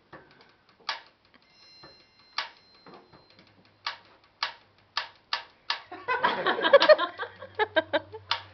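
Hands tapping out a beat on a hard surface: single sharp knocks at first, coming closer together, then a loud, dense flurry of taps about six seconds in.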